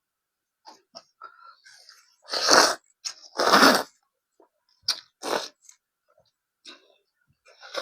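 Close-miked eating: two loud crunching bites, about two and three and a half seconds in, with smaller chewing and mouth clicks around them.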